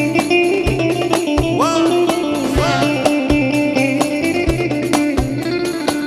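Instrumental break of a Turkish arabesk song played by a live band: a steady drum beat under a melody line with bending, sliding notes.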